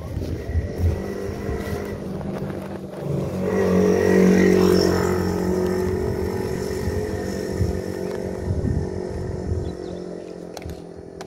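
A motor vehicle's engine passing close by, growing to its loudest about four seconds in and then fading away. Knocks from the camera being handled and propped up come in the first few seconds.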